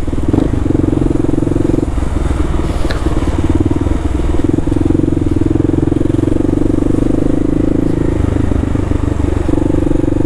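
Motorcycle engine running steadily under way, heard close up from the rider's seat. The engine note dips briefly a few times.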